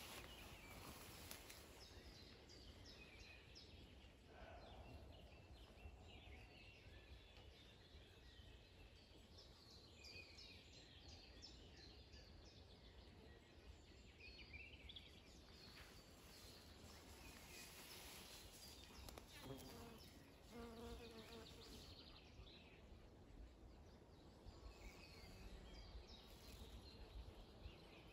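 Faint summer meadow ambience: insects buzzing and small birds chirping.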